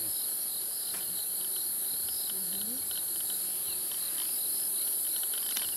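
Crickets and other night insects trilling steadily: a continuous high drone with a pulsing chirp over it. A faint sharp crack near the end fits the leopard crunching bones.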